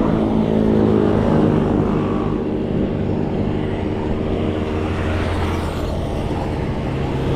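A motor vehicle's engine running steadily, over road and wind noise.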